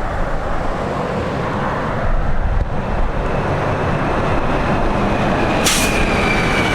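2019 Blue Bird All American rear-engine school bus running with a steady low rumble. A short, sharp hiss of air cuts in about five and a half seconds in.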